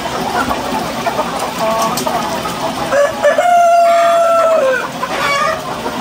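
Chickens calling, with hens clucking and a rooster crowing once about three seconds in: a long held call of over a second that rises at the start and falls away at the end.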